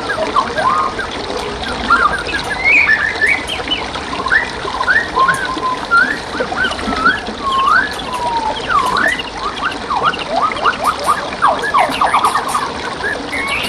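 Songbirds singing over a steady babble of flowing stream water: a stream of short whistled notes that sweep up and down, with a quick run of repeated notes near the end.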